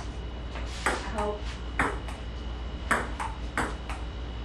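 Table tennis rally: a ping-pong ball clicking off the paddles and the table, about four sharp clicks a little under a second apart.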